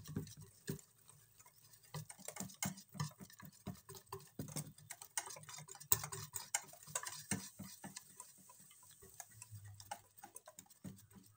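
Wire whisk beating thick besan (gram-flour) batter in a stainless steel bowl: rapid, uneven clicking and tapping of the wires against the metal.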